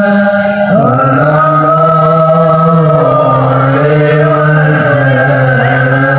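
Low male voices chanting an Islamic devotional chant in long, drawn-out held notes. The melody steps down to a lower note a little under a second in, then holds with slow small bends.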